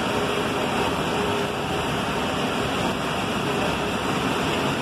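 Band saw running: a steady, even machine noise.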